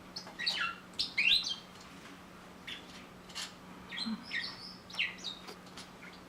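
Small cage birds chirping, with clusters of short, quick calls that sweep up and down in pitch. A faint steady low hum runs underneath.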